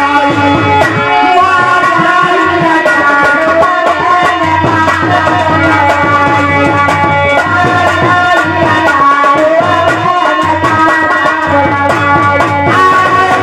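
Live dehati bhajan music: a dholak drum keeps up a fast rhythm under a held melody of steady, sustained notes.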